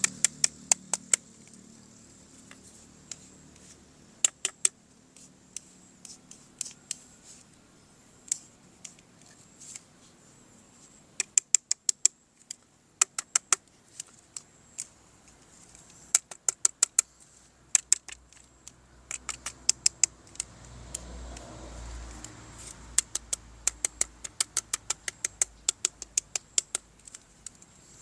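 Plastic toy parts being handled: sharp clicks and taps, often in quick runs of several, with quieter rustling between.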